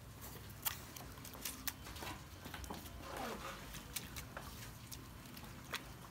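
Scattered light clicks and taps over a low steady hum as hands work freshly made khanom chin rice noodles, wet from their water bath, into a plastic bowl.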